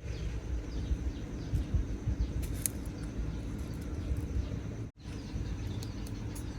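Outdoor ambience: faint bird chirps over a steady low rumble, cutting out briefly about five seconds in.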